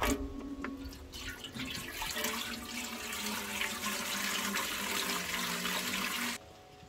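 Water running from a tap, a dense rushing splash that builds up about a second in and cuts off abruptly near the end, with faint music underneath.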